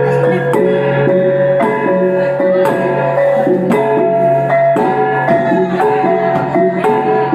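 Iban brass gong ensemble (taboh) playing: struck brass gongs ringing at several pitches in a steady, repeating rhythm of strikes a few times a second.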